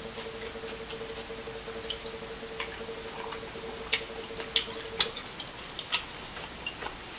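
Eating sounds from a seafood boil of crab legs and shrimp: irregular sharp clicks and crackles, one or two a second, the loudest about four and five seconds in.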